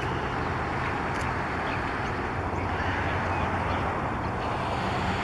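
Steady rumble of distant road traffic, with a few faint short bird calls over it.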